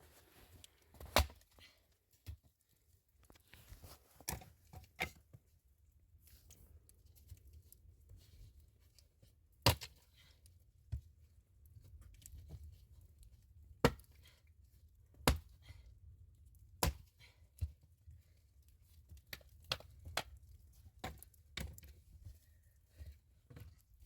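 Irregular sharp knocks and clicks in a small room, spaced from about one to several seconds apart, over a faint low hum.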